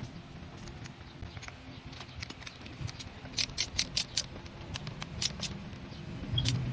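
A quick run of about five sharp clicks midway through, then two more a second later, over a low steady hum.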